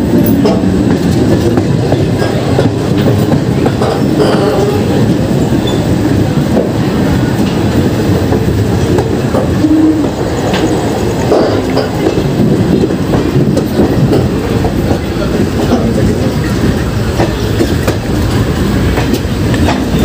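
Coach of an Indian Railways express train running over the rails as it comes into a station, its wheels clattering steadily over rail joints and points.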